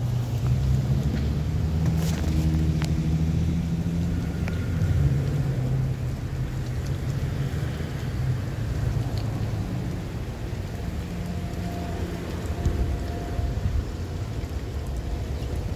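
Street traffic: vehicle engines running, with a steady engine hum that is strongest for the first several seconds and then eases off.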